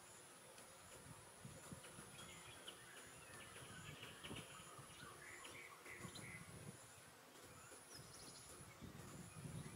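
Faint tropical forest ambience: a steady high-pitched insect drone that pauses briefly near the end, with a few short bird chirps around the middle and occasional faint low rumbles.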